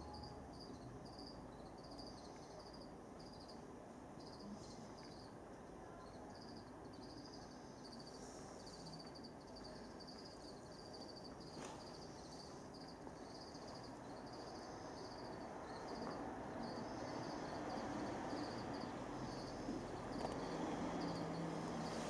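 Crickets chirping: a steady run of short, high, evenly spaced chirps, over a murmur of room noise that grows louder near the end.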